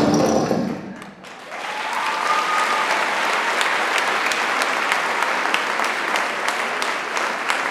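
An orchestral music track ends on a held chord, then an audience breaks into sustained applause with many individual claps.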